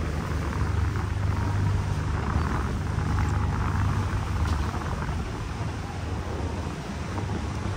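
Steady low rumble of a Seine tour boat's engine, heard on board.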